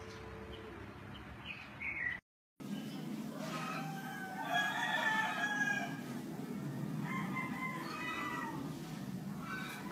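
A rooster crowing twice, first about three and a half seconds in and again around seven seconds, after a short gap of silence about two seconds in.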